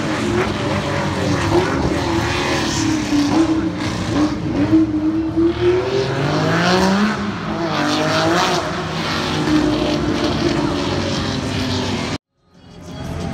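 Classic race cars' engines revving on a wet circuit, the pitch rising and falling as they accelerate and lift. The sound cuts off suddenly about twelve seconds in, then fades back in.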